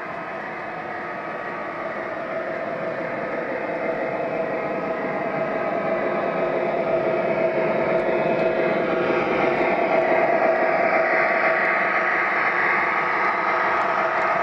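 O-gauge model freight train rolling along the track with a steady hum. It grows louder as the diesel locomotive comes near and passes, then holds steady as the freight cars roll by.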